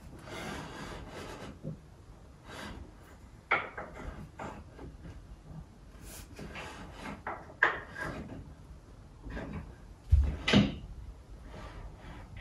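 Wooden desk trestles and tabletop being handled during assembly: wood scraping and rubbing, then scattered sharp knocks, the loudest a heavy thump and a knock about ten seconds in.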